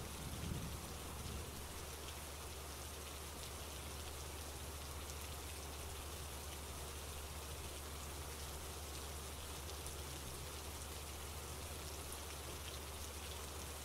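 Steady rainfall, an even hiss with a low, steady rumble beneath it.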